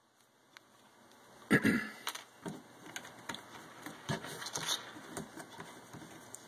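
Small plastic clicks and rustles as a refill syringe and a bottle of ink are handled on a desk, with one louder knock about a second and a half in.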